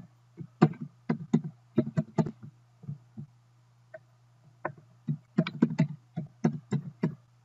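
Computer keyboard keys clicking in two short runs of typing, the second starting about four and a half seconds in, over a steady low hum.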